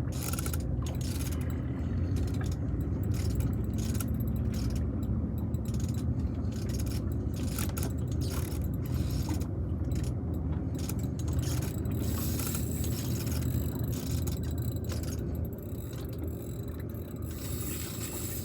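Fishing reel being cranked and clicking mechanically while a hooked fish is played, over a steady low rumble.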